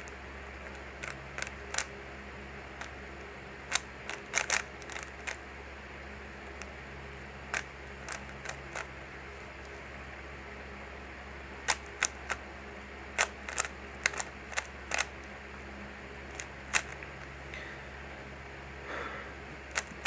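3x3 Rubik's cube layers being turned quickly by hand in a speed solve: sharp plastic clicks, singly and in quick clusters, coming irregularly over a steady low hum.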